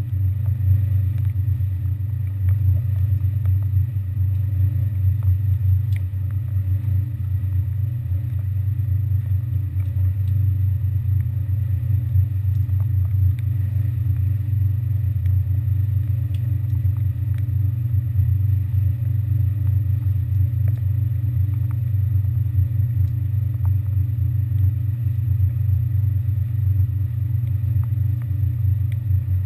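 Passenger ferry's engines running underway with a steady, unbroken low drone, with a few faint clicks on top.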